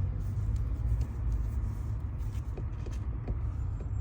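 Hyundai Elantra MD running with a steady low rumble, with a few faint light clicks and creaks over it.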